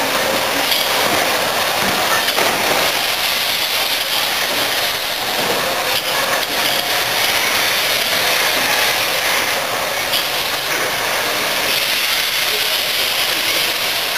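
Somerset & Dorset Joint Railway 7F 2-8-0 steam locomotive moving slowly past, with a steady hiss of escaping steam.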